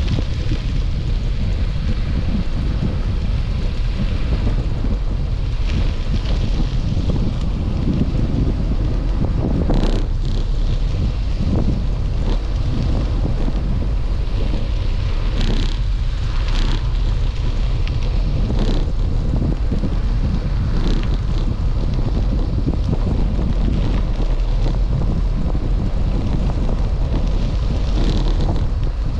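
Steady wind buffeting the microphone, a heavy low rumble, with a few short knocks or rattles scattered through it.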